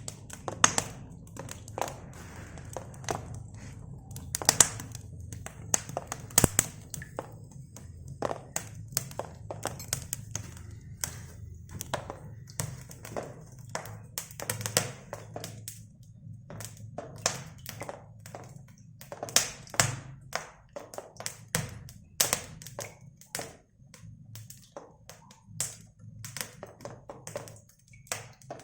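Irregular sharp taps and knocks of masonry work on a brick fireplace, bunched closely together at times, over a steady low hum.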